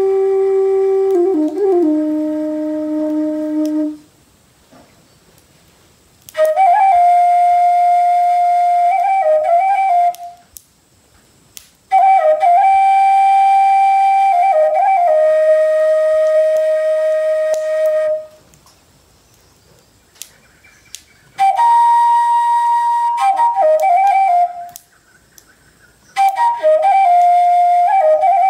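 Solo flute melody of long held notes with quick ornamental turns between them, played in five short phrases separated by brief pauses; the first phrase sits lower than the rest.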